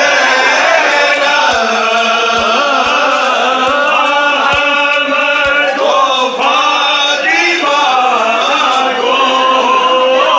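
A large crowd of men chanting a mourning chant together, loud and continuous, with a few low thumps in the first half.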